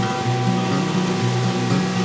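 Background music with a low line of changing notes over steady held tones.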